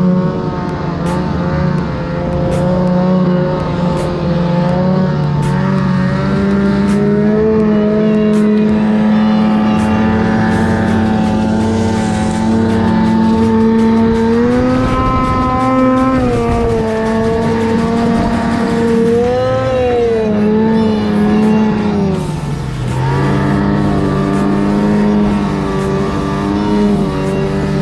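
Snowmobile engine running hard at high revs while ploughing through deep powder snow. Its pitch climbs about halfway through, wavers, then drops sharply about three-quarters of the way in before picking up again.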